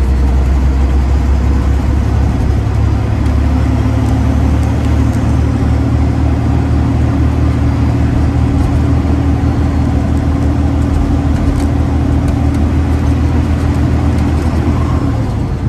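Freightliner Classic XL semi truck's diesel engine running steadily while driving, heard from inside the cab as a continuous low drone.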